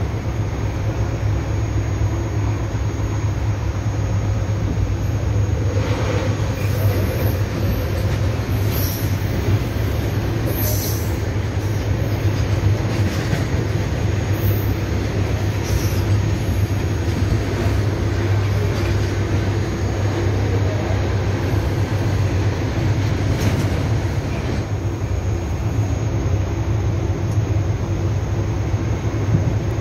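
Passenger train running, a steady rumble with a low hum heard from inside a crowded coach, with a few faint clicks along the way.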